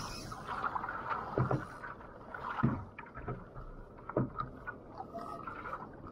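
Sea water lapping and slapping against a kayak hull, muffled, with three dull knocks spread over a few seconds.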